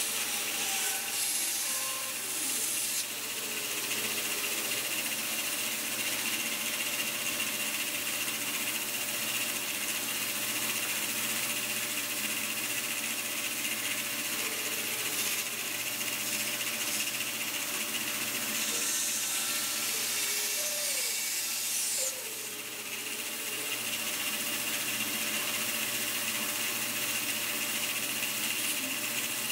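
Bandsaw running with a steady whine and hiss as its blade cuts through a pine block. The sound briefly drops about two-thirds of the way through.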